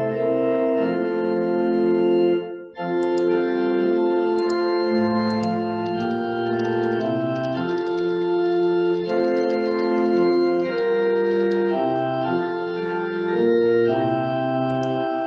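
Church organ playing held chords that change every second or so over a low bass line, with a brief break about two and a half seconds in.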